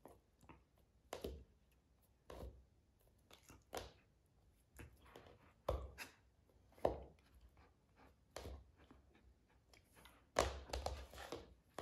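A hand tapping and scratching on a wooden floor while a Eurasier puppy paws and mouths at it in play: a series of short knocks and scuffles, roughly one a second, with a quick cluster near the end.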